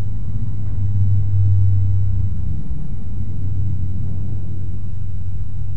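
A steady low hum or rumble with no other clear events, swelling slightly a second or two in.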